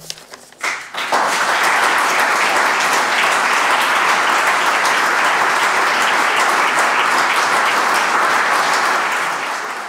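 Audience applauding: a few scattered claps at first, then dense, steady clapping from about a second in.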